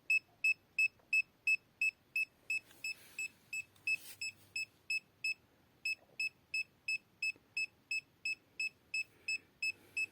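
Handheld R&D RD630 EMF meter beeping its alarm in short, high, evenly spaced beeps, about three a second, with a short pause about five seconds in. The beeping signals that the meter is picking up a strong field from a USB AC/DC adapter.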